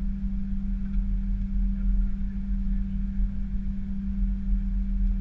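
Airliner heard from inside the cockpit on the runway: a steady low drone of the engines and aircraft systems with a constant hum, unchanging in pitch.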